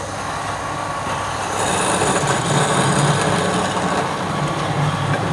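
Wood lathe running steadily with a low motor hum, growing louder and hissier about a second and a half in.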